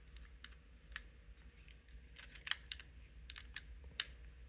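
T8 Torx screwdriver backing screws out of an Xbox One controller's plastic housing: faint, irregular clicks and ticks as the bit turns and the screw and plastic shift.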